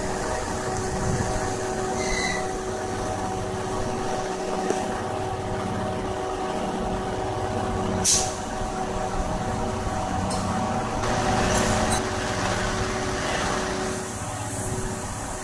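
JR EF81 electric locomotive standing with its equipment humming steadily. About eight seconds in there is a short sharp burst of air hiss, and a longer swell of hissing follows a few seconds later, typical of air-brake lines being released during coupling.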